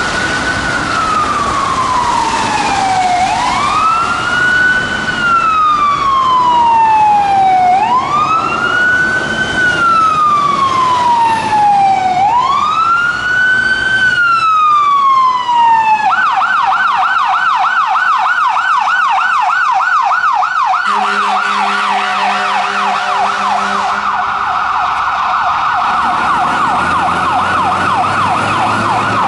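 Carson electronic siren on a fire-rescue medic truck sounding a slow wail, rising and falling about every four seconds, then switching to a fast yelp about sixteen seconds in. Several seconds of steady, low air-horn blasts sound under the yelp.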